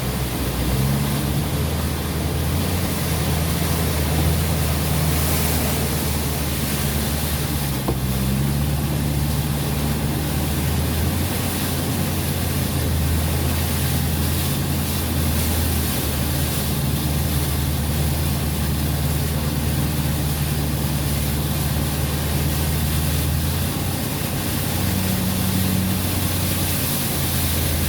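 Pickup truck engine running at low speed, heard from inside the cab, its pitch shifting a few times as the truck creeps along, under a steady hiss.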